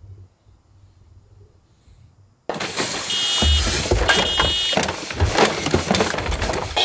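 Faint low rumble of a small die-cast toy truck rolling on a wooden floor. About two and a half seconds in, loud electronic sound effects from a toy garbage truck cut in: an engine sound with deep thumps and two short runs of high beeps.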